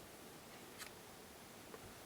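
Near silence: steady room hiss, with a faint sharp click just before a second in and a fainter tick near the end.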